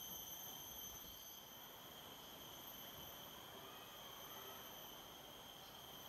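Faint, steady high-pitched drone of rainforest insects holding several even tones without a break, over a low hiss.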